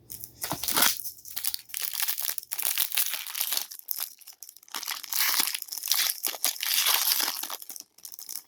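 Plastic wrapper of a trading-card pack crinkling and tearing as it is opened, a long run of rustling with a short lull about four seconds in.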